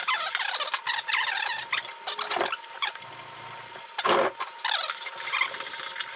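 Coarse drywall sanding sponge rubbed by hand along plywood edges and corners: irregular rasping strokes with short high squeaks, smoothing the wood for paint.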